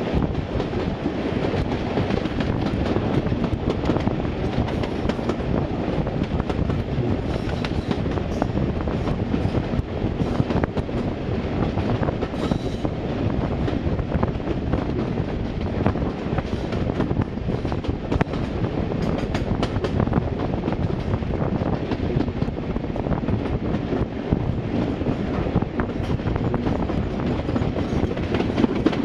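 Diesel-locomotive-hauled train running: steady heavy engine noise with wheels clicking over the rail joints.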